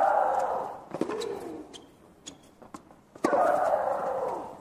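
Tennis rally: racket strikes on the ball, each followed by a player's loud, long shriek that falls in pitch. Loud shrieks come at the start and again about three seconds in, with a weaker cry about a second in.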